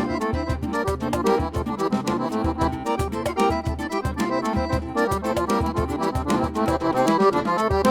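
Accordion playing a fast, busy baião melody over pulsing bass notes, with treble runs and chords.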